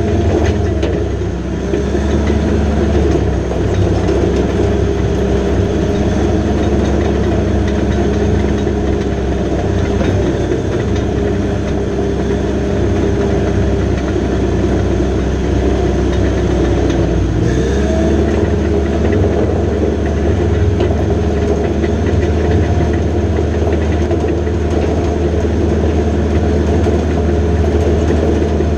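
Diesel engine of a John Deere 450J LT crawler dozer running steadily, its pitch dipping briefly about a second in and shifting again a little past halfway.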